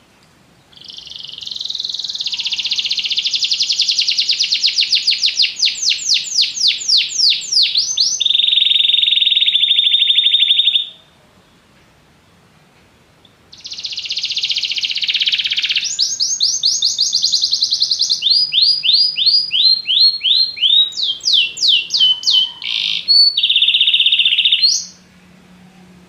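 Domestic canary singing two long song phrases, each a chain of fast high trills and rolls that change pattern every second or two. A pause of about three seconds separates the two phrases.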